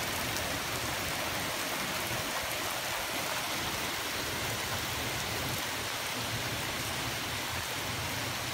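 Heavy rain falling steadily, an even hiss with no thunder claps.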